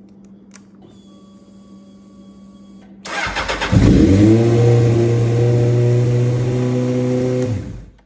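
Honda CBR600F4i inline-four engine being started through a home-made ignition bypass toggle switch instead of the key. The starter cranks briefly about three seconds in, the engine catches at once and runs steadily at idle, then winds down and stops near the end.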